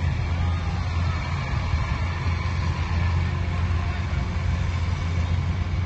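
A machine's engine running steadily with a low hum, typical of harvest machinery at work.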